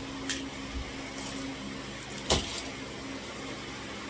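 Hand-loading .22 LR cartridges: small clicks of rounds being picked out of a plastic bag and fed into a clear tube, with one sharp, louder click about two seconds in, over a low steady hum.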